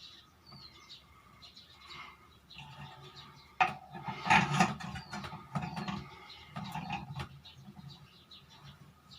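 Plastic table-fan parts being handled and fitted together by hand: a sharp click about three and a half seconds in, then a run of knocks and rattles, loudest about a second later.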